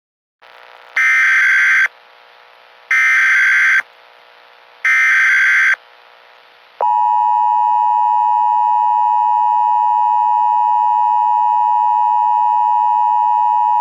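Emergency Alert System alarm: three short, identical SAME data-header bursts about two seconds apart, then the long steady attention tone starting about seven seconds in, over a faint steady background tone.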